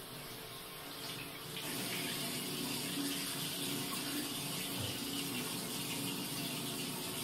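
Water running from a tap into a bathroom washbasin in a steady stream, a little quieter for the first second and a half.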